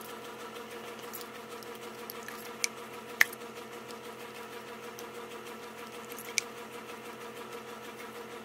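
A few sharp plastic clicks of spark plug wires and boots being pressed into their guides and keepers, over a steady background hum. Three clicks, the loudest a little after three seconds in.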